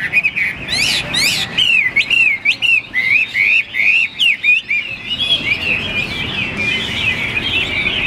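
Caged songbirds singing: a run of loud, looping whistled notes, about two a second, gives way about halfway through to denser, busier twittering.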